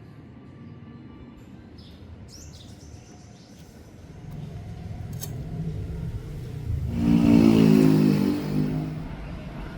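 A motor vehicle's engine grows louder over several seconds, peaks and then fades, like a vehicle passing close by. A few faint bird chirps come before it.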